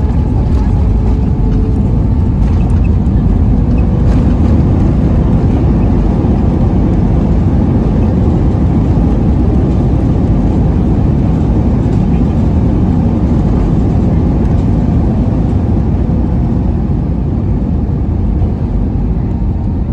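Loud steady rumble inside the cabin of an Airbus A320 as it rolls along the runway after landing: engine and rolling noise together, easing slightly near the end.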